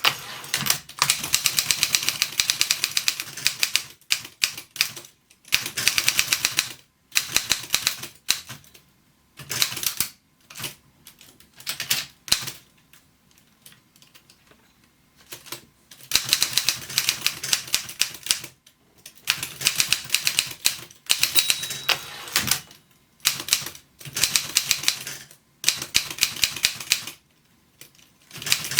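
Continental manual typewriter, wartime German-built, being typed on in quick runs of keystrokes. Each run lasts a second or two, with short pauses between, and there is a quieter lull about halfway through.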